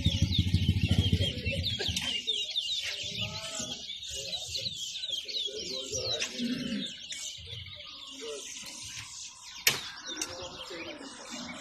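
Towa towa finches singing: quick runs of high chirping notes that thin out in the second half. A low rumble sits under the first couple of seconds, and a sharp click comes near the end.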